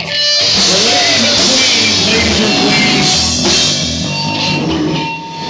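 Loud rock music with a drum kit's cymbals and electric guitar, dipping briefly near the end.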